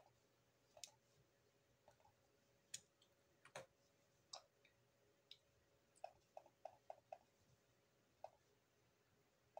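Faint, irregularly spaced computer mouse clicks, with a quick run of about five clicks a little past the middle.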